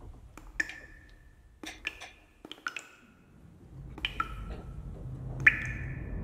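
Small hard objects clicking and clinking as they are handled inside a cabinet: about half a dozen sharp taps, several leaving a short ringing tone. The loudest comes near the end.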